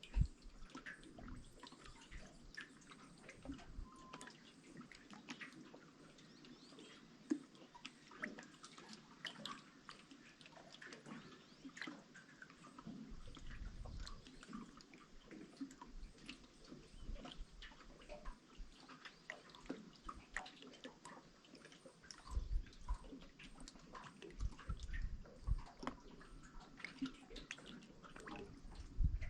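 Gentle water sounds: many small irregular drips and splashes over a faint trickle, with a few low thumps in the second half.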